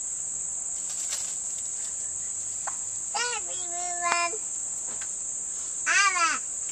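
Steady, high-pitched chorus of insects. Two short high-pitched calls stand out over it, one about three seconds in lasting about a second, another about six seconds in.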